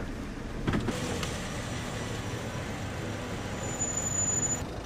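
Steady low engine hum heard on board a chain-driven vehicle ferry during the crossing, with a sharp knock about a second in and a brief high whine near the end.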